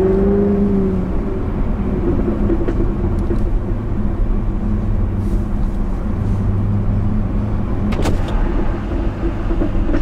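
Jaguar F-Type R Coupé's supercharged 5.0-litre V8 running at steady low revs while cruising, heard from inside the cabin. There is a short click about eight seconds in.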